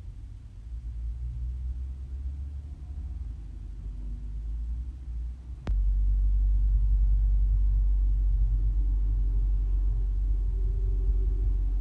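Steady low rumble with a single sharp click a little over halfway through, after which the rumble is louder.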